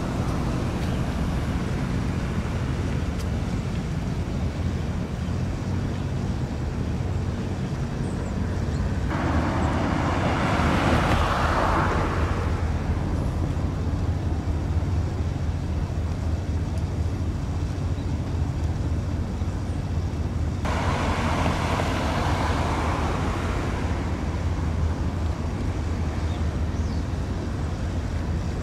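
Outdoor traffic noise: a steady low rumble with two louder whooshes of vehicles going by, one about a third of the way in and one past two-thirds.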